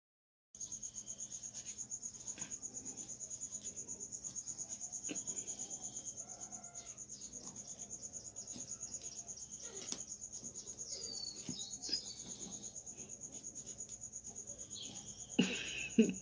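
A cricket chirping steadily, a rapid pulsing trill at one high pitch. Near the end a person's voice breaks in.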